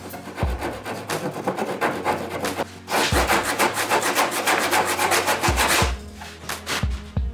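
Small hand saw cutting across a wooden block in quick back-and-forth strokes. The sawing is fainter at first, loudest from about three seconds in, and stops just before six seconds as the cut is finished.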